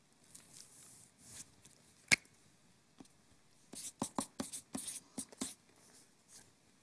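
A single sharp click about two seconds in, then a quick run of short felt-tip marker strokes scratching on flipchart paper between about four and five and a half seconds.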